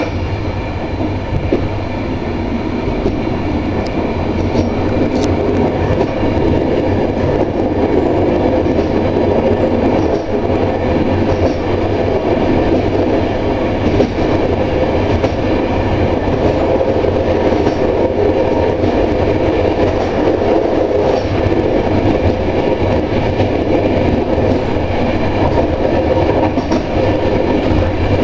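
Electric train running at speed, heard from the driver's cab: a steady rumble of wheels on the rails with a constant hum, and a few faint clicks.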